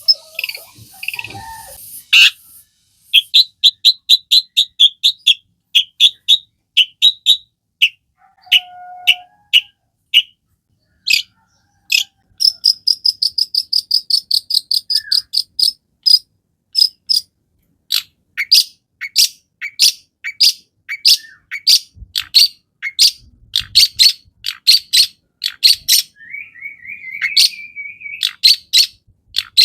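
Long-tailed shrike (cendet) singing persistently: loud, sharp, high chattering notes in quick strings, with a very fast rattling run in the middle and a short rising buzzy phrase near the end.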